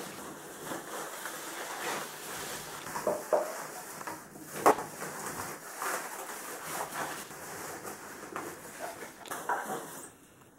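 Unboxing packaging being handled: rustling with scattered knocks and clicks, one sharper knock a little before halfway.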